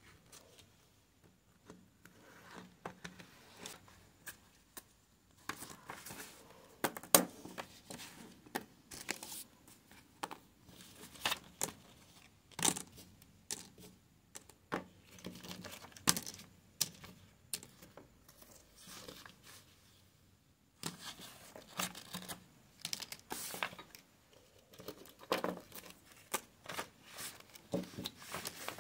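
Clear plastic Spirograph gears, rings and rulers being handled and shuffled on a sheet of paper: irregular clicks and clacks of plastic with paper rustling, fairly quiet for the first few seconds and pausing briefly about two-thirds of the way through.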